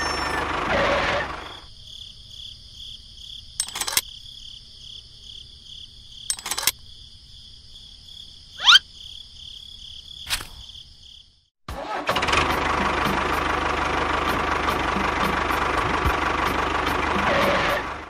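A vehicle engine running, loud at the start and again from about twelve seconds on. In the quieter stretch between, a steady high pulsing tone, a few sharp clicks and one quick rising whoosh.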